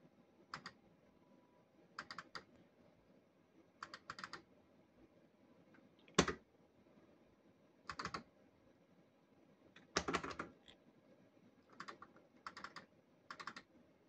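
Bursts of short clicks from a Cops 'n' Robbers Safe Cracker fruit machine, a small cluster every second or two. The loudest single click comes about six seconds in, and a longer run of clicks about ten seconds in.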